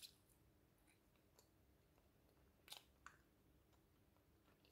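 Near silence, with a few faint clicks of someone eating sticky glutinous rice cake with a fork and chewing it with the mouth closed.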